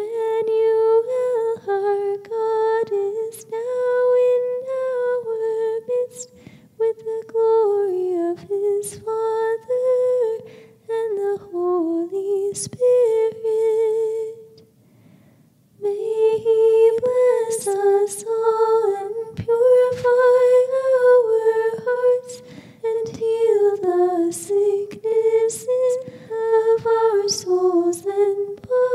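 A single high voice singing a traditional Coptic hymn in English unaccompanied, a slow melody that moves in small steps up and down, with a short break about halfway through.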